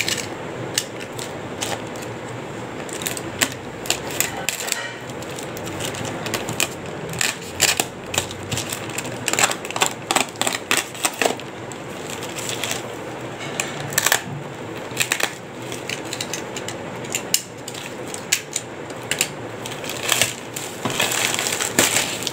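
Plastic courier mailer bag being crumpled and torn open by hand: a long run of irregular crackles and crinkles.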